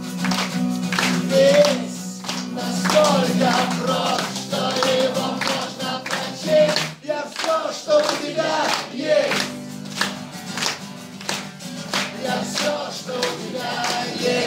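Live acoustic guitar strummed with wordless singing over it and a steady rhythmic beat, about two beats a second. The low guitar chords drop out for a couple of seconds around the middle, then come back.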